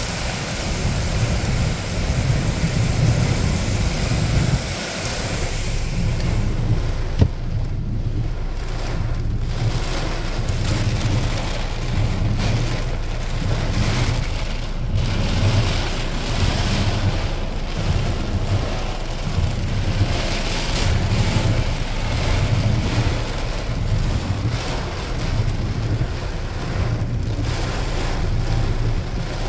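Heavy storm rain pelting a car, heard from inside the cabin, with a fluctuating low rumble of wind and the moving car underneath. The hiss is brightest for the first five seconds or so, then duller. One sharp tick comes about seven seconds in.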